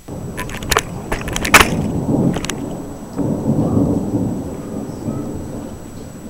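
Close thunder: several sharp cracks in the first two and a half seconds, then a low rolling rumble that swells and slowly fades.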